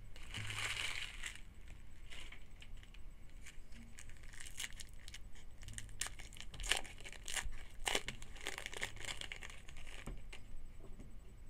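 Trading-card pack wrapper being torn open and crinkled, followed by many short snaps and clicks as a stack of cards is handled.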